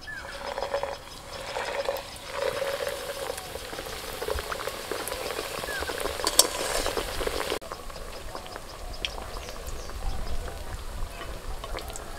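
Mughlai paratha deep-frying in hot oil in a steel kadai, the oil sizzling and bubbling steadily with small crackles. The sizzle drops abruptly to a quieter level about two-thirds through.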